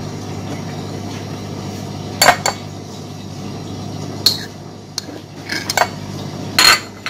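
Metal spoon scraping and clinking against a china plate and a glass bowl while toothpaste is scooped into a paste, with a handful of separate sharp clinks about two seconds in and several more in the second half, over a faint steady hum.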